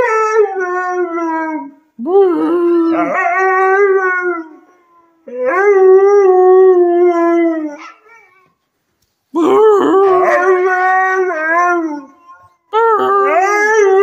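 Siberian husky howling: a string of about five long, level howls, each two to three seconds long, rising in pitch at the start and then holding, with short pauses between.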